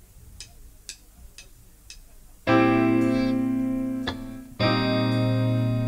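Four evenly spaced clicks, about two a second, count the band in; then a live band's electronic keyboard plays loud sustained chords, each held about two seconds with a short break between.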